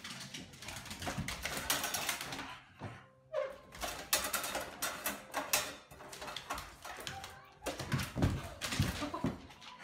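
A dog jumping at a front door's metal mail slot: the flap clattering and the dog's paws scraping and knocking against the door in a rapid, irregular series of rattles and thumps.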